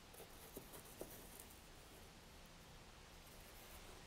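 Near silence: room tone with a couple of faint light taps about half a second and a second in, as a thin 1/8-inch wooden partition is slid down into the slots of a small wooden box.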